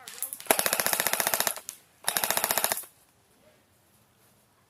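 Airsoft rifle firing two rapid full-auto bursts, the first about a second long and the second shorter, starting about half a second and two seconds in.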